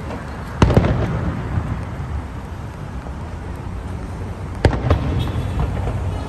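Aerial fireworks bursting: two sharp, loud bangs about four seconds apart, over a continuous low rumble and crackle of further shells.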